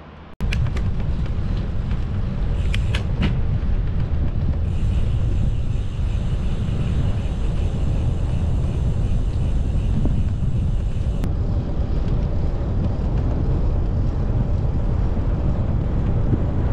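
Heavy wind buffeting on the microphone while riding a bicycle at speed, a steady low rumble. A few clicks come in the first three seconds, and a thin high buzz joins about five seconds in and stops about eleven seconds in.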